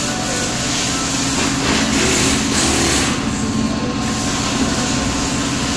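Steady, loud machine noise: a continuous hiss over a low hum, with no separate blows or bursts.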